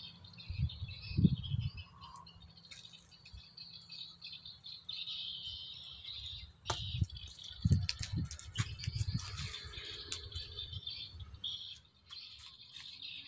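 Birds chirping steadily in the background. A few low thumps and rumbles come about half a second to a second and a half in, and again from about seven to nine and a half seconds in.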